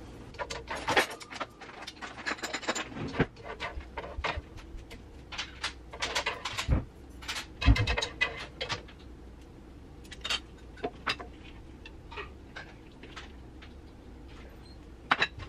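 Cooking utensils, a spatula and chopsticks, clacking and scraping against a wok and frying pans, sped up to three times normal speed. The knocks come thick and irregular for most of the first nine seconds, then thin out to a scattering of taps over a low steady hum.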